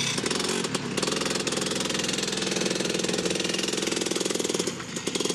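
Racing go-kart engines running at high revs as karts pass close by, a rapid buzzing rattle that dips briefly near the end before the next kart comes through.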